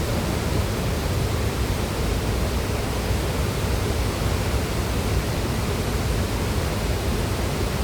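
Haew Suwat Waterfall's steady rush of falling water, a dense even noise heaviest in the low end.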